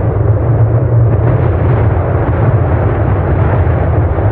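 Deep, steady rumble of the Fuego volcano erupting, with no single blast standing out.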